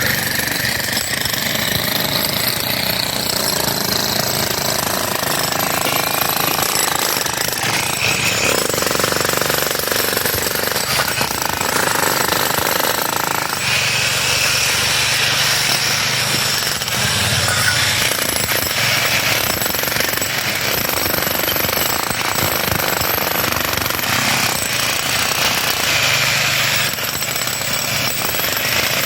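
Jackhammer breaking pavement, hammering loudly and without a break.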